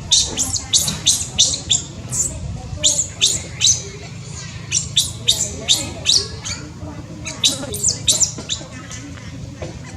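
Baby monkey squeaking: rapid, high-pitched chirps and squeaks, several a second, with brief pauses between runs.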